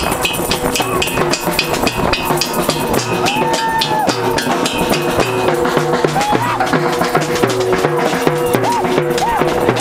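Noise demonstration: a crowd banging drums and other percussion in a dense, continuous din, with held pitched tones and short rising-and-falling calls over it.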